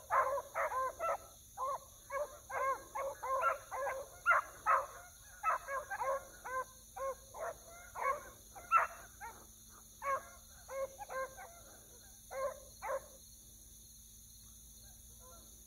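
Beagles baying as they run a scent trail: a rapid, irregular string of short overlapping barks from several hounds that thins out and stops about thirteen seconds in.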